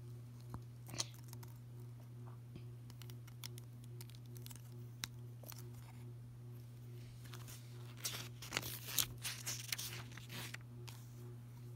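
Small plastic Lego pieces clicking and tapping faintly as they are handled, then a couple of seconds of paper rustling and crinkling near the end, over a steady low hum.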